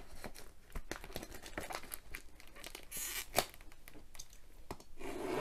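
Clear plastic shrink-wrap on a cardboard box crinkling and tearing as fingers pick at it: scattered small crackles, with a short rip about three seconds in.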